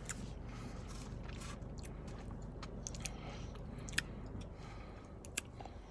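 A person quietly chewing a mouthful of Dippin' Dots frozen ice-cream beads, with a few faint sharp clicks, the clearest about four seconds in and again just past five.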